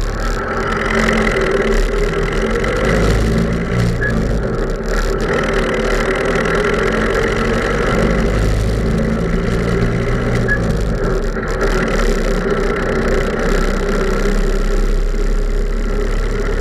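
Diesel engine of heavy farm machinery running steadily.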